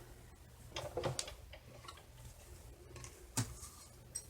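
A few light clicks and taps from handling a metal cutting die and paper, with a sharper click about three and a half seconds in.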